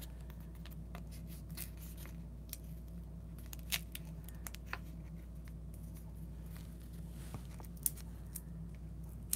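Faint, scattered clicks and rustles of card stock being handled, over a steady low hum.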